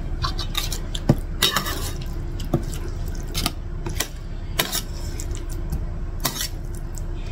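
Metal spoon scraping and clinking against a plate while scooping up fried flat rice noodles: a dozen or so short, irregular clinks over a steady low hum.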